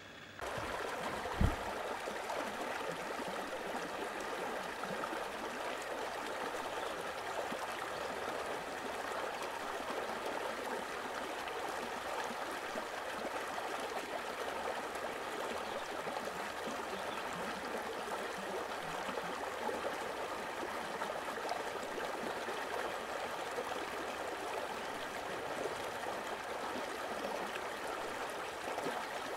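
Steady rushing of flowing water, like a stream, with one sharp thump about a second and a half in.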